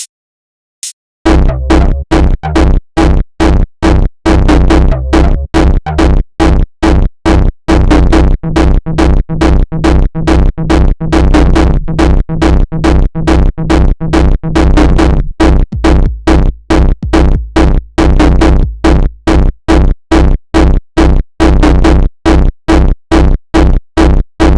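Homemade electronic jumpstyle beat. A few sparse clicks come first, then about a second in a loud, fast, steady kick-drum and bass pattern comes in and keeps a regular rhythm.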